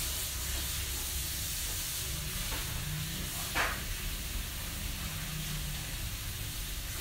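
Steady background hiss with a low hum under it, and one short sound about three and a half seconds in.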